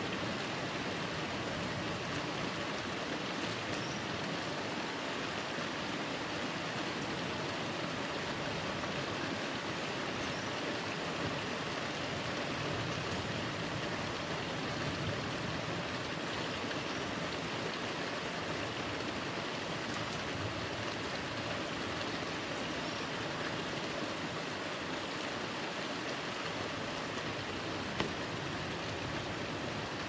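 Steady summer rainstorm: heavy rain falling as an even hiss, with one sharp tick near the end.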